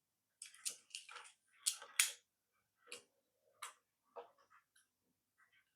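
Irregular clicks and taps of small hard plastic parts of a toy car being handled and fitted together. The loudest pair comes about two seconds in.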